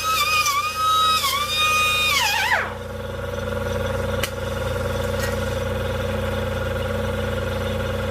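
Pneumatic air grinder spinning with a high whine, its pitch dipping several times, then winding down about two and a half seconds in. Afterwards the Jeep Wrangler's 2.5-litre engine keeps up a steady low idling hum, with a single click about four seconds in.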